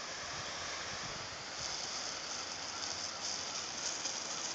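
Garden hose spraying a stream of water onto grass: a steady hiss and patter that grows brighter and a little louder about a second and a half in.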